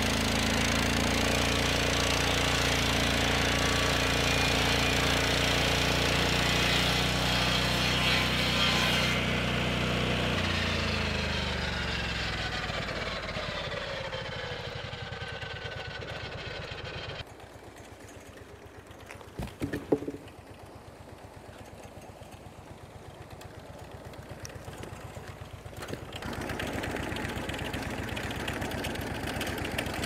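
Lucas Mill swing-blade sawmill with its Kohler engine running under load as the blade cuts through a fir log. About ten seconds in, the engine pitch slides steadily down, and at about seventeen seconds it drops to a quieter steady running rhythm, with a couple of sharp knocks near twenty seconds and a rise in level near the end.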